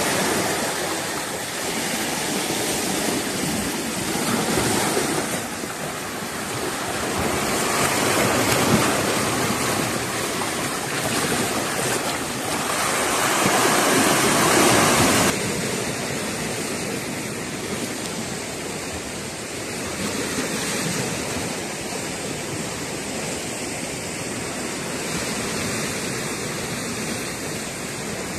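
Sea waves washing against a rocky shore, swelling and easing every few seconds. The surge drops off suddenly about halfway through to a steadier, softer wash.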